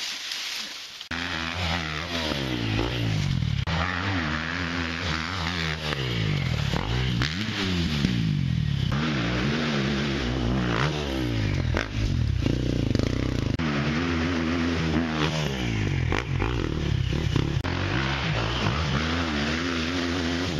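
Dirt bike engine revving up and down over and over as the rider works the throttle, starting about a second in.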